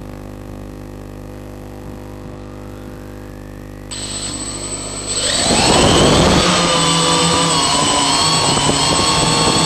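Octocopter's electric motors and propellers: a low steady hum, then about four seconds in a high whine joins, and a second later the motors spin up with a rising pitch and settle into a loud, steady multi-tone buzz as the craft lifts off.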